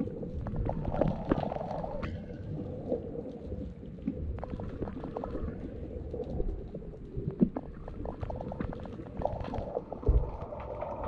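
Underwater sound picked up by a camera submerged in the sea: a muffled, steady rumble of moving water with many scattered sharp clicks.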